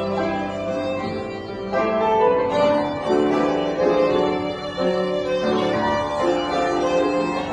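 Violin and piano playing a duet, the violin bowing held melody notes over the piano accompaniment.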